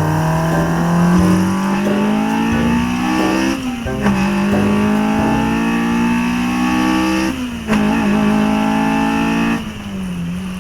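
Honda F20C inline-four breathing through individual throttle bodies, heard from inside the car as it accelerates hard. The engine note climbs steadily in pitch and drops briefly at gear changes about four seconds in, about eight seconds in, and near the end, then climbs again.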